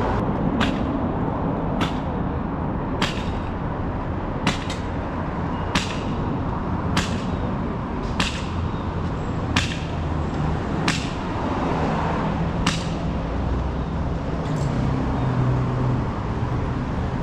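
City street traffic noise with a sharp tick repeating about every second and a bit, about eleven times, which stops roughly two-thirds of the way through. A low engine hum comes in near the end.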